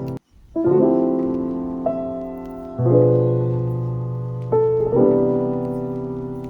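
Background music: piano chords, each struck and left to fade, with a new chord every second or two. The track cuts out briefly just after the start.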